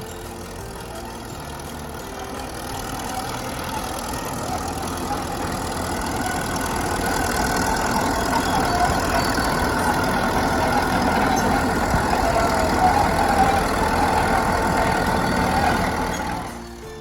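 Caterpillar D7 bulldozer's diesel engine running, growing steadily louder over about fourteen seconds, then stopping suddenly near the end.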